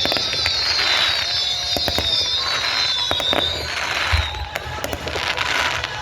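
Fireworks going off: several whistles sound together, slowly falling in pitch and fading out about four seconds in, over scattered sharp cracks and pops and crackling hiss.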